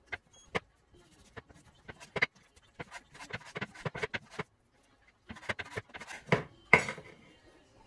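Kitchen knife slicing raw chicken breast into strips on a wooden chopping board: quick cuts with the blade tapping the board, in two runs with a short pause between, the loudest knock near the end.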